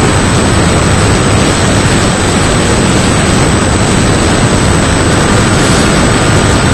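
Electric brushless motor and propeller of an RC model plane running steadily in flight, heard close up through a camera taped to the airframe, with loud wind noise over it and a thin steady whine underneath.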